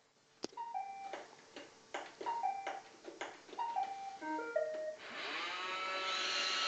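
Roomba robot vacuum: button clicks, each answered by a short two-note electronic beep, three times, then a quick falling run of beeps. About five seconds in, its vacuum motor starts and whirs up in pitch to a steady run.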